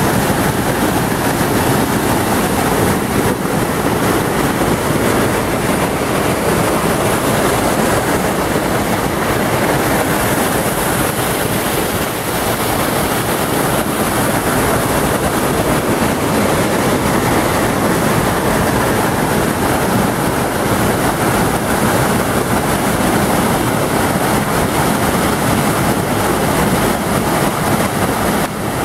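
Waterfall pouring close by: a loud, steady rush of falling water.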